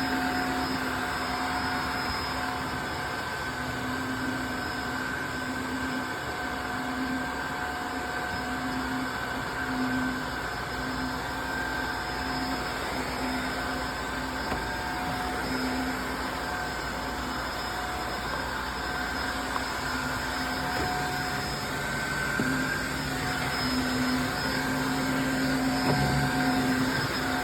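Tineco Floor ONE S5 cordless wet-dry vacuum's motor running steadily, a constant hum over airflow noise.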